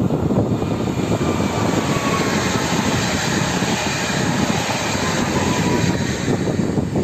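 PESA Elf (EN76) electric multiple unit passing by, a steady loud rush of wheels on rail and moving air with a faint high whine.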